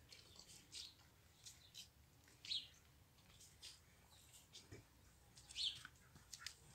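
Faint, short bird chirps over near silence, the clearest two about two and a half and five and a half seconds in.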